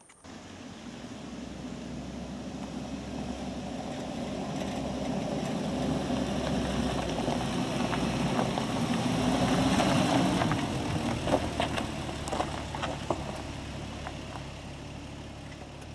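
Nissan Patrol 4WD driving slowly along a dirt track: engine and tyre noise grow louder as it approaches, are loudest about ten seconds in as it passes, then fade as it moves away. Small stones tick and crackle under the tyres as it goes by.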